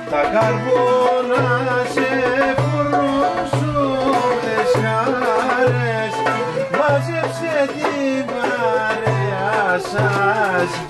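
Live Greek folk music: a violin plays a richly ornamented melody over lute and hand percussion, with a low note pulsing at a steady dance rhythm.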